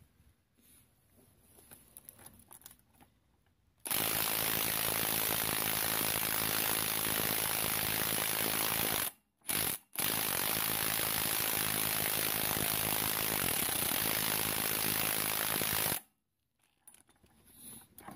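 Cordless impact wrench hammering on a rusted strut-shaft nut: it starts about four seconds in, runs steadily, drops out twice briefly in the middle, then runs on and stops about two seconds before the end. The nut is seized and does not break loose. Light clicks of tools being handled come before it and after it.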